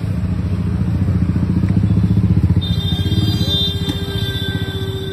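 A motorcycle engine running close by, swelling to its loudest about halfway and then easing off. A steady high-pitched tone joins about halfway in and holds.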